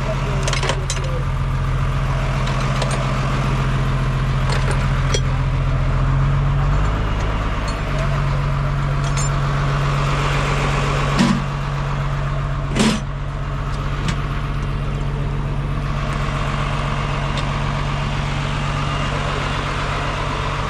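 Car engine running steadily, with two sharp knocks about a second and a half apart past the middle.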